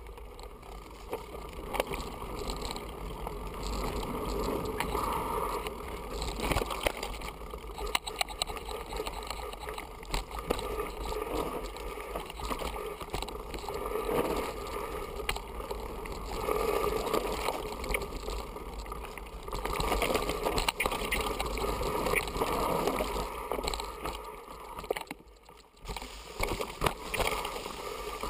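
Mountain bike riding fast down a dirt forest trail: tyres rolling over earth and loose stones, with the bike rattling and clicking over the bumps and wind rushing over the microphone. The noise eases briefly near the end.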